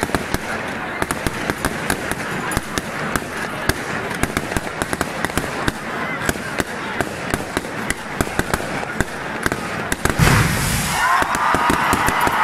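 Rapid, continuous crackle of firecrackers, with crowd voices underneath. About ten seconds in comes a deep boom with a hiss as confetti cannons fire, and then crowd voices rise in shouts as the crackling goes on.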